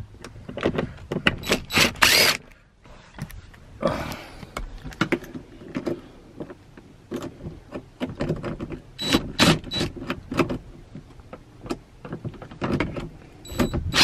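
Cordless drill spinning a 13 mm socket on an extension, undoing seat-rail bolts in short whirring bursts, with clicks and knocks of the tool and loose bolts.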